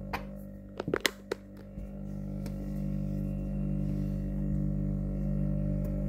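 Candy fridge freezer's compressor humming steadily, a stack of fixed low tones. The owner says it has run without ever cutting out since it was plugged in. A few sharp knocks come in the first second or so.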